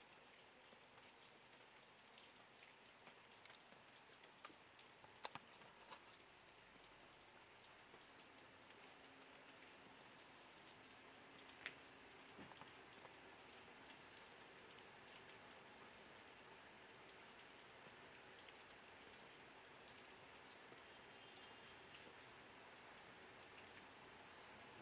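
Faint, steady hiss of light rain with scattered drips and a few small sharp ticks.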